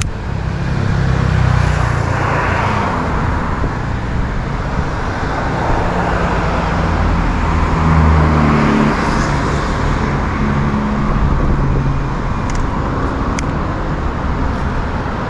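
Steady road traffic close by: engines and tyre noise, swelling as vehicles pass about two and eight seconds in.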